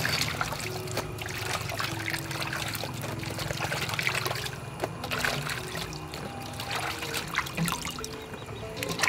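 Hands washing vegetables in a steel basin of water: water sloshing and trickling as the pieces are swished and lifted out dripping, over soft background music.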